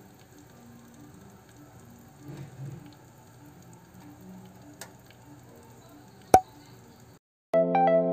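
Pot of Malabar spinach soup simmering faintly, a low steady hiss with light bubbling. One sharp pop about six seconds in, then chiming music starts near the end.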